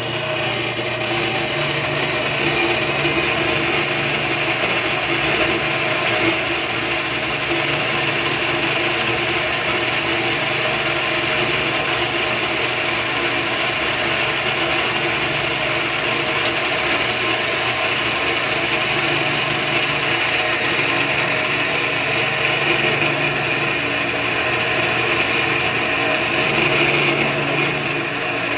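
Greenlee 1346 6-by-9-inch horizontal metal-cutting bandsaw running steadily on its single-phase 110-volt motor, the blade sawing down through a metal tube in the vise. A steady motor hum lies under the rasp of the cut.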